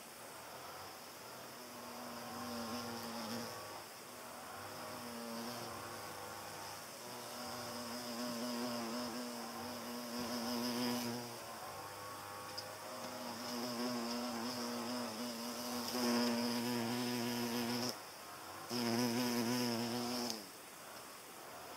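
European hornet's wings buzzing as it flies about close by: a deep, even buzz that comes and goes in stretches of a few seconds, growing louder towards the end and stopping abruptly near the end.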